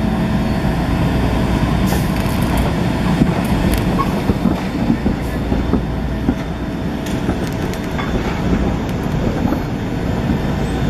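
SEPTA Kawasaki light rail vehicle moving slowly over curved street-track rails, a steady low rumble with scattered clicks and knocks.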